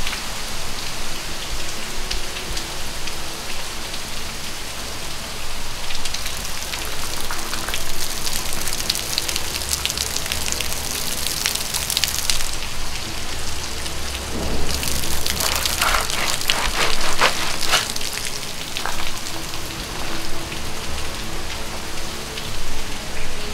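Sleet falling on fallen leaves and the ground: a steady hiss of ice pellets with dense fine ticking. It grows heavier about six seconds in and again about fifteen seconds in.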